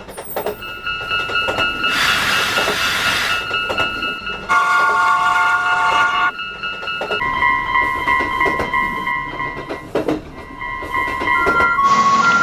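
Japanese level-crossing warning bells ringing with steady tones, a train horn sounding a chord about four and a half seconds in for roughly two seconds, and a train's wheels clicking over rail joints. Around seven seconds in the bell tones change to a lower pair, as a different crossing sounds.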